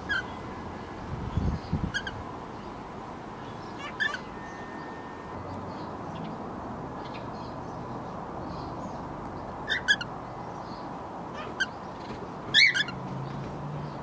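Cockatiels chirping: short, sharp calls every few seconds, with a quick pair about ten seconds in and the loudest calls a couple of seconds before the end, over faint steady background chirping. A brief low rumble about a second and a half in.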